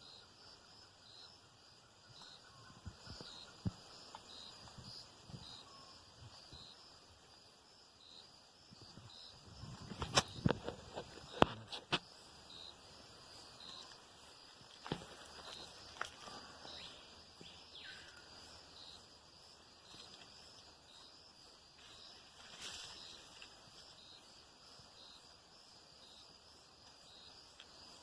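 Insects chirping in a steady, regular pulse, about one to two chirps a second, with a cluster of sharp clicks and knocks about ten seconds in and a couple more shortly after.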